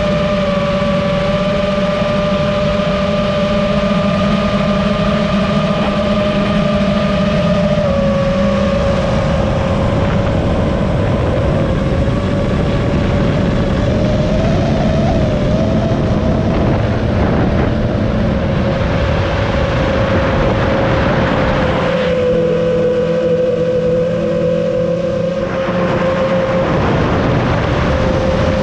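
FPV drone's brushless motors and propellers whining steadily, over a rushing noise of air. The pitch wavers slightly and shifts as the throttle changes.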